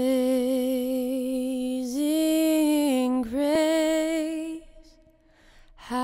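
Slow background music: a single melody of long held notes that step gently up and down, dipping out about four and a half seconds in and coming back near the end.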